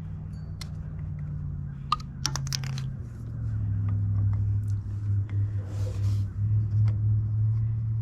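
Wrenches clicking and clattering on metal fittings as the old flat-face hydraulic coupler is worked off the hose. There is a quick cluster of sharp clicks about two seconds in. Under it is a steady low machine hum that drops in pitch and grows louder about three seconds in.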